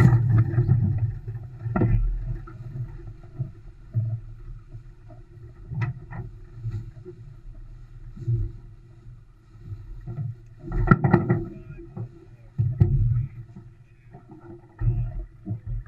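Olson 25 sailboat under sail: uneven low rumbling gusts of wind and water noise rise and fall every second or two, with a few brief knocks and a louder surge about eleven seconds in.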